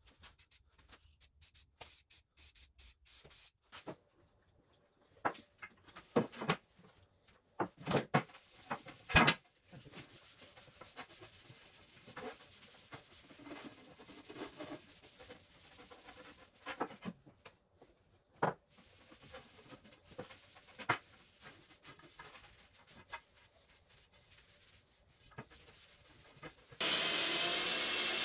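Quick back-and-forth rubbing strokes on wood for the first few seconds, then scattered knocks and clunks of wood being handled. Near the end a power tool starts up suddenly with a steady rushing whine.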